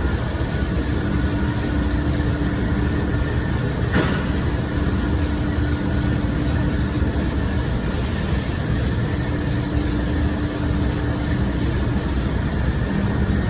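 Steady drone of industrial machinery in a powder coating shop, with a held tone and a single sharp click about four seconds in.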